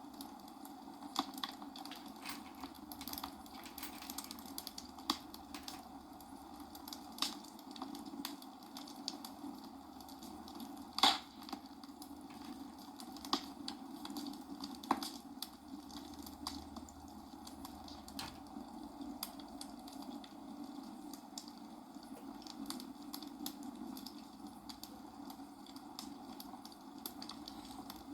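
Plastic building bricks clicking and rattling as a small Lego-style set is handled and snapped together: irregular light clicks, one sharper snap about eleven seconds in, over a steady low hiss.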